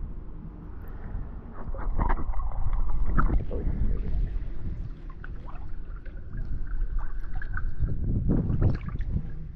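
Pool water sloshing and splashing close to the microphone, louder twice, over a low rumble of wind on the microphone.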